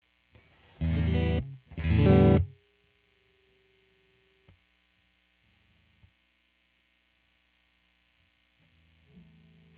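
2003 Godin SD 24 electric guitar played with distortion: two loud chords struck about a second apart, each cut short after about half a second, then a faint held single note and quiet string noise.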